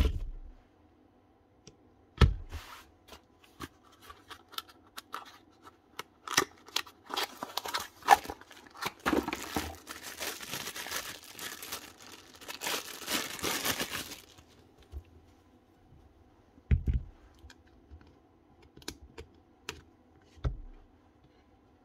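Hands handling cordless drill parts: scattered small clicks and knocks, a few dull thumps, and a few seconds of rustling, scraping noise about halfway through.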